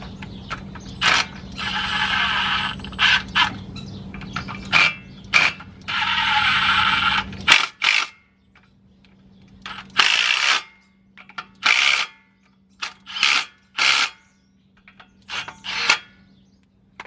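A power tool run in short bursts of about a second each, with clicks and knocks of tools and metal parts between, as parts of an old Chevy pickup's steering are taken apart. A steady low hum stops about seven and a half seconds in.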